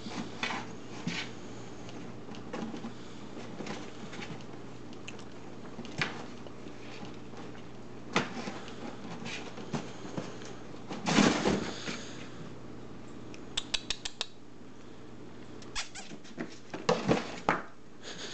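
A red Persian kitten and a second kitten scrambling on and around a cardboard box: scattered scratches, taps and knocks of paws and claws on the cardboard, the loudest flurry about eleven seconds in and a quick run of sharp ticks a couple of seconds later.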